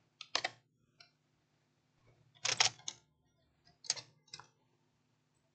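A few small, sharp clicks and taps in three brief clusters, about half a second, two and a half and four seconds in, over a faint steady low hum.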